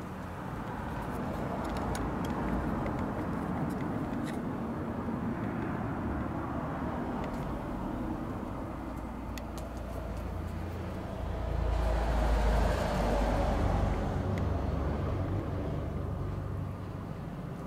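Noise of passing road traffic, growing louder as a vehicle goes by about twelve seconds in and easing off a few seconds later, with a few faint clicks.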